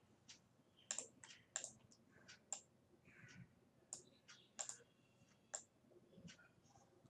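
Faint, irregular clicks of a computer mouse, about a dozen, some coming in quick pairs.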